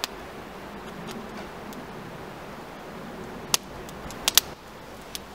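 Small wood fire burning in a metal camp stove, with a few sharp crackles and pops in the second half, two of them close together.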